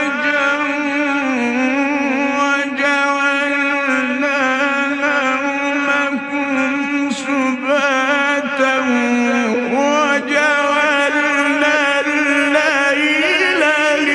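A male Quran reciter's voice in melodic (mujawwad) recitation, drawing out one long, high note without a break. The note is decorated with wavering ornaments, sags a little in the middle and climbs back about ten seconds in.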